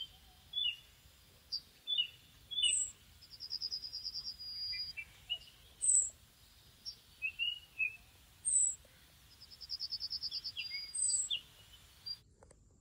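Several small birds calling and singing in the trees: scattered short chirps, a high sharp note every two to three seconds, and twice a fast trill of about ten notes a second lasting about a second. The birdsong cuts off suddenly near the end.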